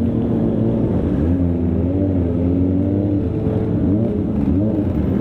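Kawasaki ZX-25R's inline-four engine running through a CLD aftermarket exhaust, its note rising and dipping slightly.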